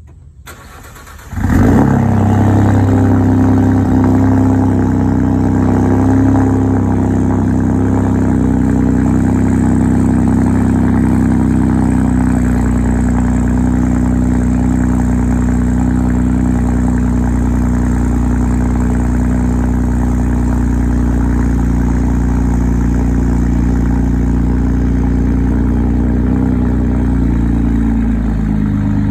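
Ford F-150 EcoBoost twin-turbocharged V6 starting up a little over a second in, then running steadily at idle.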